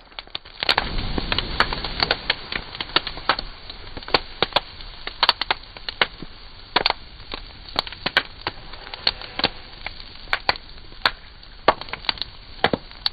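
Irregular crackling and snapping, a few sharp clicks a second, over a steady hiss.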